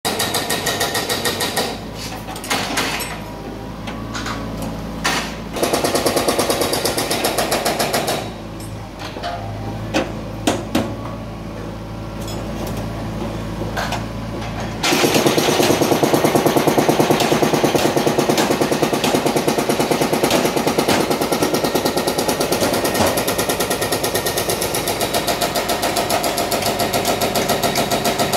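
Mini excavator's hydraulic breaker hammering concrete with rapid, evenly spaced blows over the machine's engine hum. The blows come in bursts at first, then run on steadily and louder from about halfway through.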